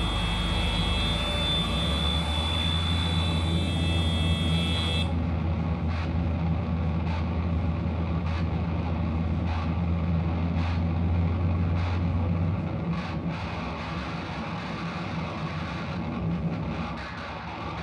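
Improvised experimental noise music: a dense wash of sound over a steady low drone. A high steady whine cuts off about five seconds in, leaving scattered clicks in the wash, and the low drone drops out around twelve seconds in.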